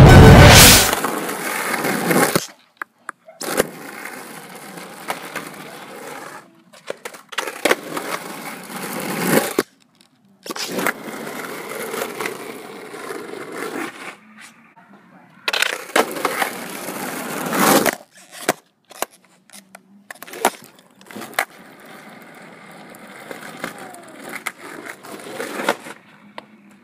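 The tail of a loud intro music hit in the first second, then skateboard wheels rolling on pavement with sharp clacks of the board hitting the ground, in a run of short clips that cut off abruptly.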